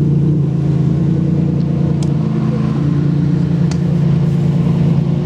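Ferrari Enzo's V12 idling steadily at a constant, even pitch, with no revs.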